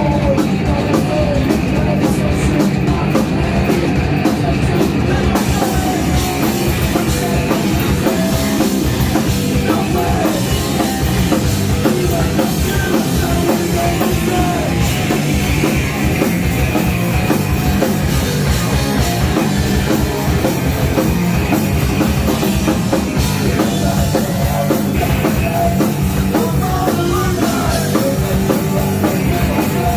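Live rock band playing loudly in the punk style: electric guitar, bass guitar and drum kit, with a singer shouting into the microphone.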